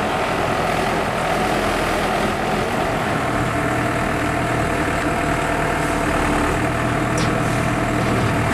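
Heavy diesel engine idling steadily, its low hum growing a little stronger from about three seconds in.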